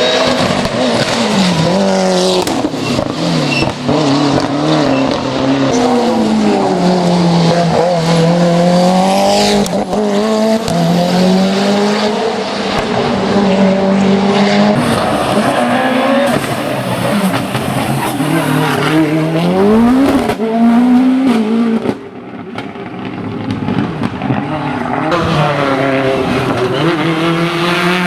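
Mitsubishi Lancer hill-climb prototype's engine running flat out, its pitch climbing and dropping again and again through gear changes and lifts. The sound falls away suddenly about 22 seconds in, then builds back up.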